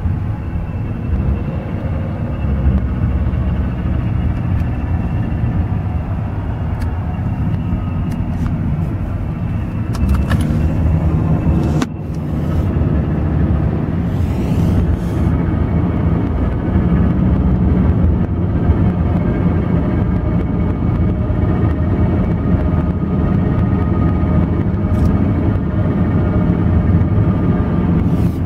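Cabin noise of a 2007 Nissan Altima under way and accelerating: a steady low rumble with a faint high whine over it, and one sharp click near the middle. The noise comes from a worn bearing inside the car's CVT transmission.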